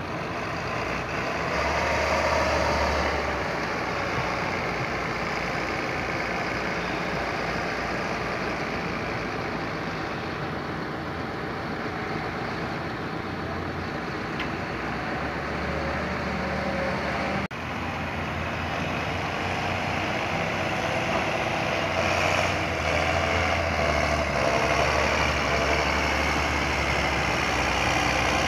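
Diesel engines of John Deere tractors running on a maize silage clamp, first a front-loader tractor working the chopped maize pile, then a tractor with a trailer; the engine sound changes abruptly about two-thirds through.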